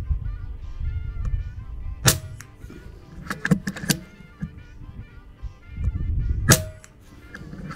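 Two shots from an FX Dreamline Lite .22 PCP air rifle fitted with a Huggett moderator, each a short sharp report with a brief ring, about four seconds apart. About a second after each shot comes a quick run of metallic clicks as the side-lever action is cycled for the next pellet. Wind rumbles on the microphone and faint music plays underneath.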